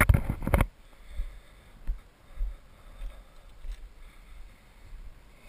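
Wind rumbling on the microphone, with a louder rush in the first half-second and a few faint knocks after it; no engine is running.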